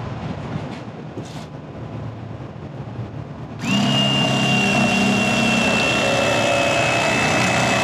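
Bubba Blade electric fillet knife switched on about three and a half seconds in and running steadily with a high whine as it cuts the skin off a sheepshead fillet.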